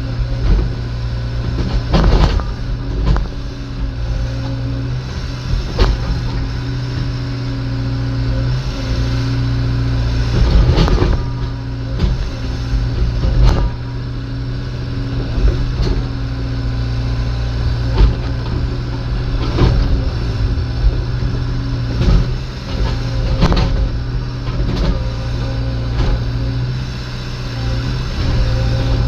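Komatsu hydraulic excavator's diesel engine running steadily, with sharp knocks and clanks every couple of seconds.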